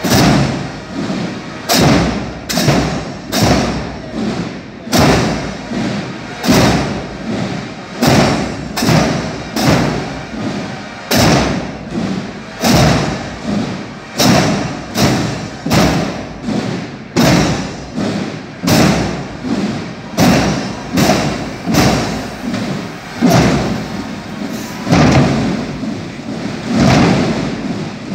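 Drum section of a marching bugle-and-drum band, bass drums among them, beating a steady marching cadence of loud, even strokes about one and a half a second.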